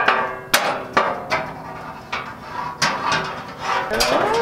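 Metal parts of a griddle's steel stand knocking and clanking together during assembly: a series of irregular sharp metallic knocks, several with a brief ring.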